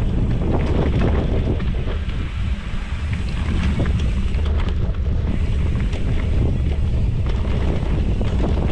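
A mountain bike with Maxxis Minion DHR knobby tyres rolling over dirt singletrack, heard from a handlebar-mounted GoPro. A steady low rumble of tyres and wind buffeting on the microphone runs under scattered short clicks and rattles from the bike and the trail.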